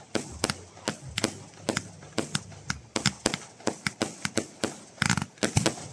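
Aerial fireworks bursting overhead: a rapid, irregular run of sharp bangs and cracks, about three or four a second, with a denser volley of cracks about five seconds in.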